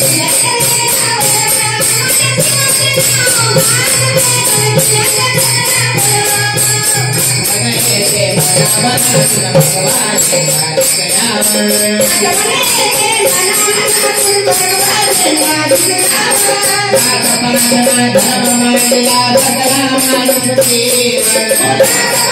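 Music with a steady jingling, tambourine-like percussion beat under a wavering melody line.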